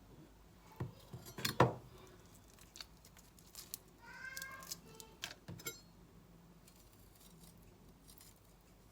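Kitchen knife and hands cutting and handling seafood on a cutting board: a few scattered knocks and clicks, the loudest about one and a half seconds in. A short high-pitched call is heard about four seconds in.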